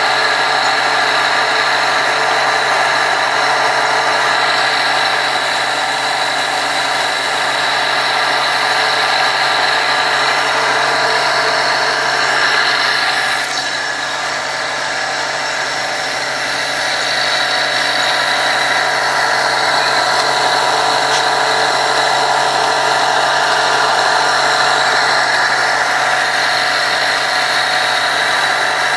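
Steady drone of a running machine, dipping a little in level about halfway through.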